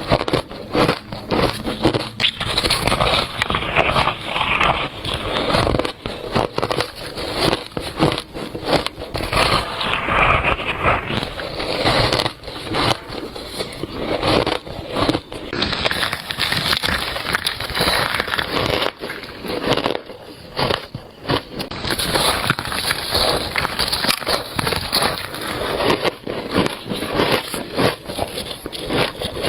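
Biting into shaved ice: squeaky, crunchy bites, one crunch after another without a break.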